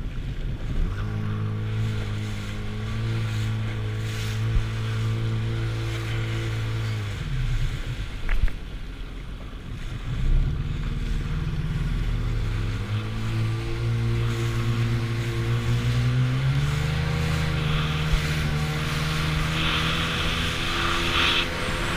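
Jet ski engine running at a steady pitch, dropping away about seven seconds in, then coming back and rising in pitch in two steps as it speeds up, over the rush of water spray and wind.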